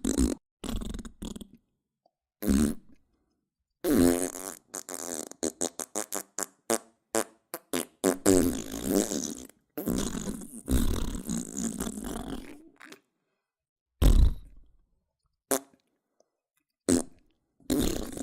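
A string of fart sound effects played one after another with short silences between. Short single blasts come at the start and near the end, and in the middle there are long, sputtering farts made of rapid pops lasting several seconds.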